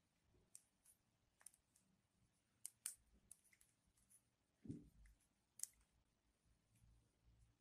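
Near silence with a few faint, scattered clicks and one soft low thud about two-thirds of the way through.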